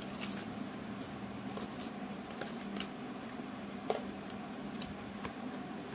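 Paper and thin cardboard rustling and clicking as the white documentation folder from an iPhone XR box is handled, with a sharper tap about four seconds in, over a steady low hum.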